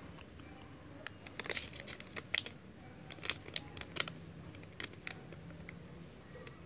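Paper rustling in a string of short, sharp crinkles and crackles as the test kit's folded instruction leaflet is handled. The crackles start about a second in and die away about five seconds in.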